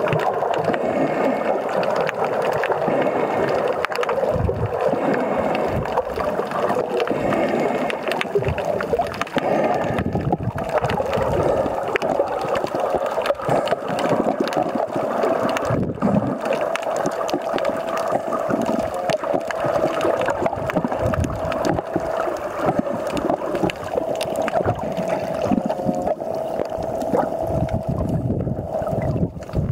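Muffled water sloshing and gurgling around a camera held underwater by a snorkeler. A steady hum joins about halfway through.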